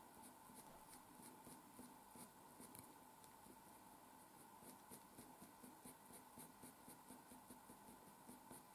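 Faint scratching of a sharp coloured pencil on paper in quick, short flicking strokes, several a second, in a steady rhythm.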